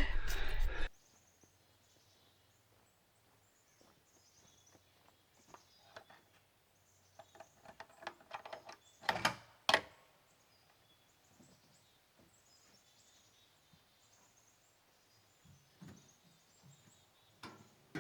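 Faint outdoor quiet with scattered high bird chirps, broken by two sharp knocks about nine seconds in, half a second apart.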